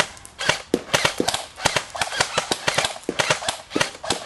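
Airsoft guns firing a rapid, irregular string of single shots, several sharp cracks each second.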